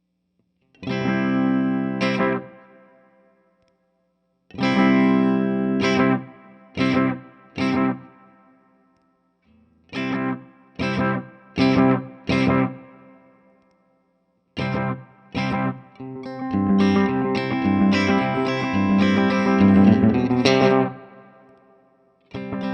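Electric guitar chords played through an MN3005 bucket-brigade analog delay pedal: groups of short chord stabs with pauses between them, then a longer, denser stretch of strummed chords in the last third that fades out near the end.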